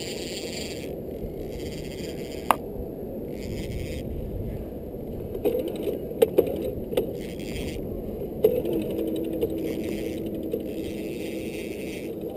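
Hands working a conventional levelwind trolling reel on a rod: short spells of ticking reel noise and a few sharp clicks and knocks, most of them between about two and nine seconds in, over a steady low rumble.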